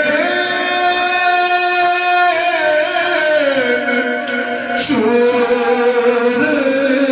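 A man's voice chanting a salam into a microphone, holding one long steady note for about two seconds, then sliding down through a drawn-out phrase and settling on another held note.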